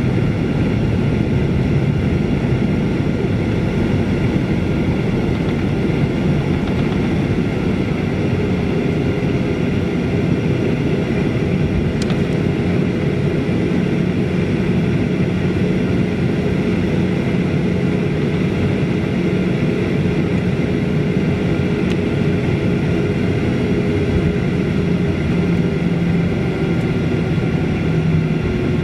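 Boeing 737-800 cabin noise while taxiing: the steady hum and whine of its CFM56-7B turbofan engines at low taxi power, heard through the cabin wall near the wing. A lower drone grows stronger near the end.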